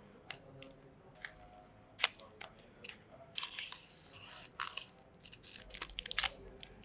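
Unboxing handling: a card box tapped and slid open, and the clear plastic wrap crinkling as it is peeled off a pod vape, heard as scattered sharp clicks and short crinkly rustles.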